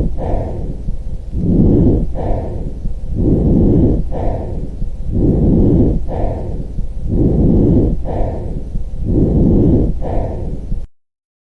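Normal vesicular breath sounds: soft rushing airflow in the lungs, rising and falling in a steady rhythm of about five breaths, one every two seconds, and cutting off abruptly near the end.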